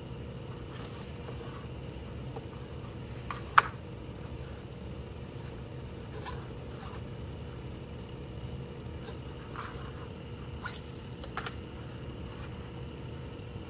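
Paracord rustling and scraping faintly as it is handled and pulled through the knots of a bracelet being woven, with one sharp click about three and a half seconds in, over a steady low hum.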